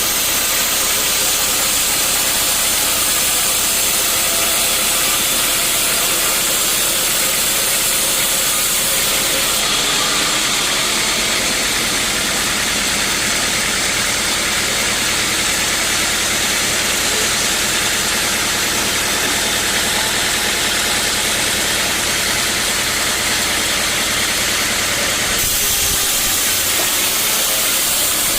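Sawmill saw running through teak wood: a loud, steady hiss over a machine hum, shifting abruptly about ten seconds in and again near the end.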